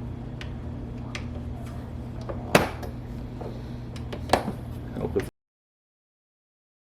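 Light clicks and two louder plastic clunks from handling a FoodSaver vacuum sealer and its bag, over a steady low hum. The sound cuts off abruptly a little after five seconds in.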